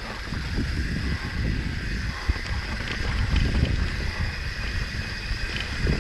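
Wind buffeting the microphone over the rumble of a mountain bike rolling along a trail, with a faint steady high tone above it.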